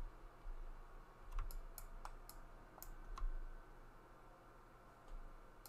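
Light clicks from a computer keyboard and mouse at the desk: about six irregular clicks in the first three seconds, then one more near the end, over a faint steady low hum.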